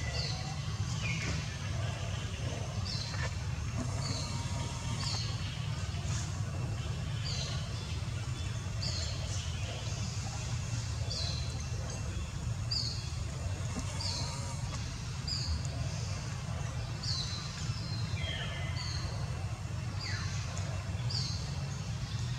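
A bird calling over and over with short, high chirps that fall in pitch, about one a second, over a steady low rumble.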